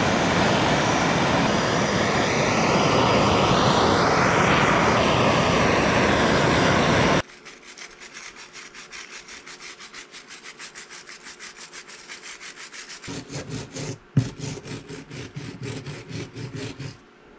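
A handheld gas torch burns with a steady rushing flame as it chars the surface of a small wooden carving, cutting off suddenly about seven seconds in. Then a wire brush scrubs the charred wood in quick back-and-forth strokes, several a second, with one sharp knock near the end.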